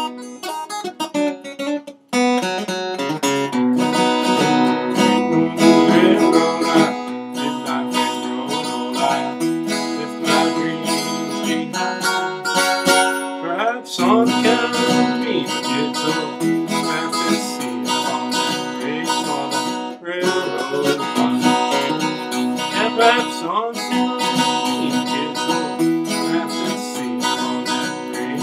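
Acoustic guitar playing an instrumental break in a bluegrass tune, strummed and picked, with a few sliding notes.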